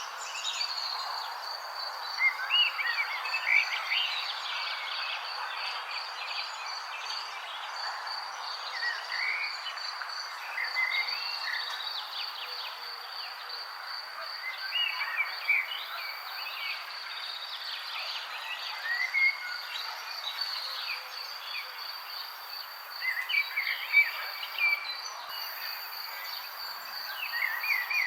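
Outdoor nature ambience: a steady high-pitched insect trill runs throughout, with wild birds chirping in short scattered phrases over a constant background hiss.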